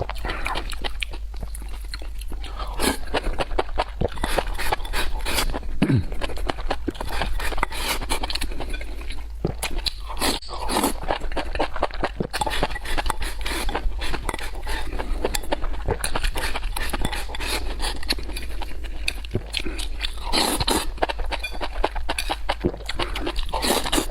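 Close-up eating sounds from a person chewing and smacking food, with a dense run of small wet mouth clicks, over a steady low hum.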